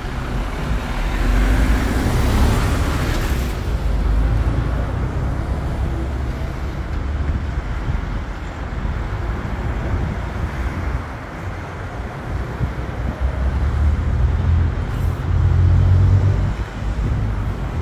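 Road traffic going by, with one vehicle passing close about two seconds in, over a steady low rumble.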